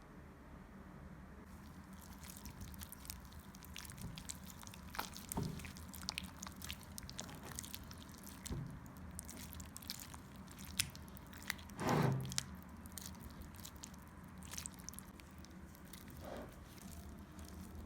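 Kitchen food-preparation sounds: soft squishing and handling, with scattered light clicks and taps and one louder knock about twelve seconds in.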